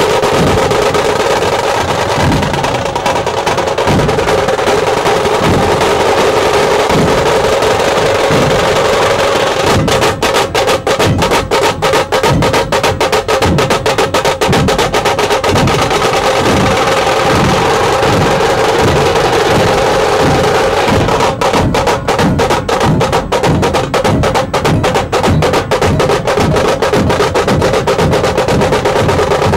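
Dhol-tasha drumming: deep dhol beats under a continuous rapid tasha drum roll. The dhol strokes come more closely packed from about ten seconds in.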